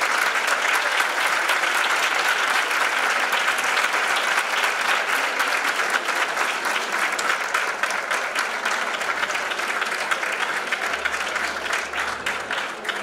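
Audience applauding steadily, a dense crackle of many hands clapping, dying down near the end.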